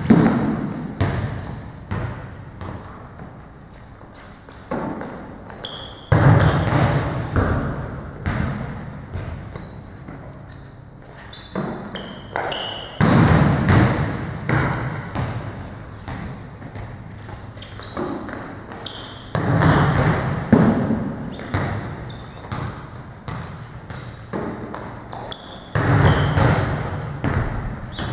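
Volleyball drill on a gym sport court: five times, about every six or seven seconds, a ball is struck hard and a player's impact thuds on the floor, echoing in the hall. Between them come short high sneaker squeaks on the court surface.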